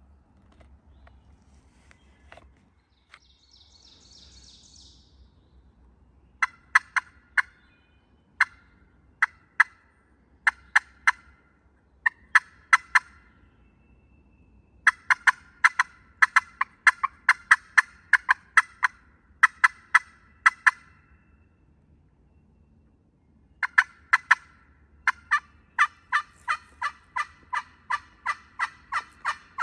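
Turkey yelping: runs of sharp, evenly spaced yelps, about three a second, broken by pauses, with the longest and fastest run starting near the end.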